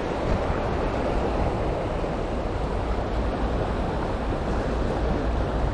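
Steady wind rumble on the microphone over the wash of sea waves against shore rocks.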